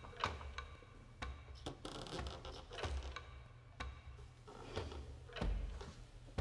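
Clothing rustling and scattered light knocks and bumps as people move and climb about, over a low pulsing rumble.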